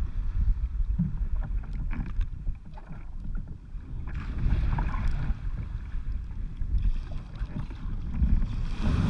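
Wind buffeting the microphone of a camera on a sea kayak's deck, a strong uneven rumble, over waves rushing and splashing around the kayak's bow in rough water. A louder rush of water comes about four seconds in.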